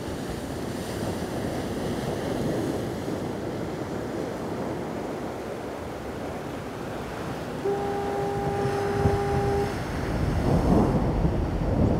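Ocean surf washing steadily, with a single steady horn blast of about two seconds, like a foghorn, about eight seconds in. A low rumble builds near the end.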